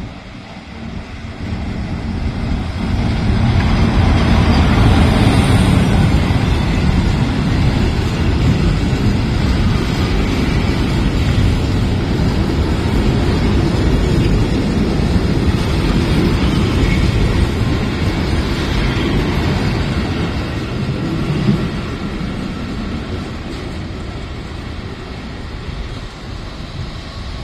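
Italian FS E656 electric locomotive and its train of vintage centoporte carriages rolling slowly past along the platform: a steady rumble of wheels on rail. It builds as the locomotive comes by, holds while the carriages pass, and fades as the train draws away.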